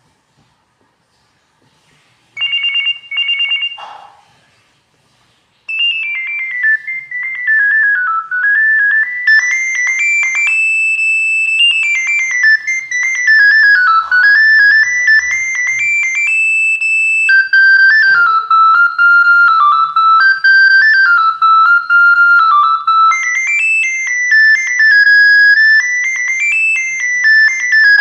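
Nokia 9110 Communicator playing its sounds through its small speaker: two short electronic beeps about two and a half seconds in, then, from about six seconds, a monophonic ringtone melody of quick single notes stepping up and down.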